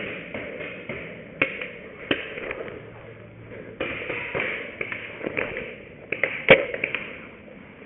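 Scattered sharp pops and knocks of paintball fire and paintball impacts, two single ones early, then a quick cluster with the loudest about six and a half seconds in, over the rustle of a player running and moving gear.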